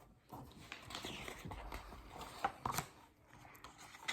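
Faint rustling of a picture book's paper pages being handled and turned, with a couple of light clicks about two and a half seconds in.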